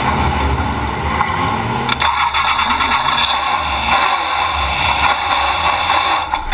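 Stock-car V8 engine running loud, heard from inside the race car's cockpit, with a steady din of cabin and road noise.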